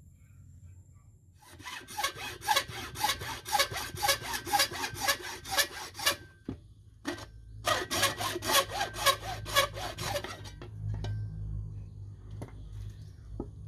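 A hand tool scraped back and forth in quick, even strokes, about five a second: two runs of a few seconds each, with a short pause and a single stroke between them, then a few faint taps near the end.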